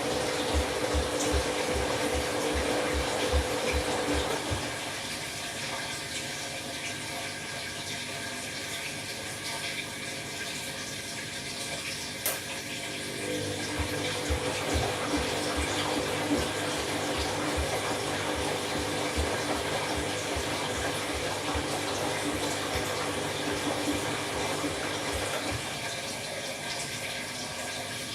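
Candy washing machine running an empty bleach wash: the drum motor hums and the drum turns with regular low thuds and water sloshing, stops a few seconds in, then starts again a little before halfway and runs for about twelve seconds before pausing.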